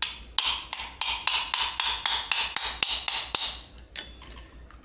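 A small hammer taps quickly, about four times a second, around a .50 BMG brass cartridge case with a steel ball bearing stuck inside. Each tap is a ringing metallic clink. The tapping stretches the brass so the ball comes loose. The run of taps stops about three and a half seconds in, and two single taps follow near the end.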